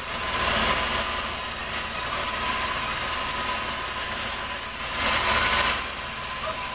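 Sawmill machinery running steadily, a constant engine-like hum with a steady high whine, briefly louder about five seconds in.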